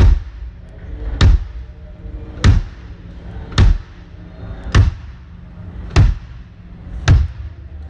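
A single drum struck again and again during a sound check, seven evenly spaced hits a little over a second apart, each a deep thump with a sharp attack.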